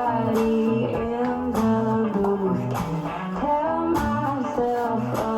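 Music track with guitar and sustained pitched notes over a steady beat that strikes about once every second and a bit.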